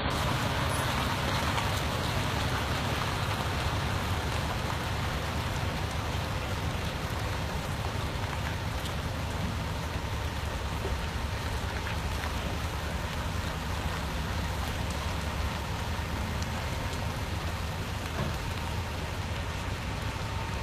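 Heavy semi truck's diesel engine running steadily at low speed under a constant hiss as it slowly tows a multi-axle lowboy trailer.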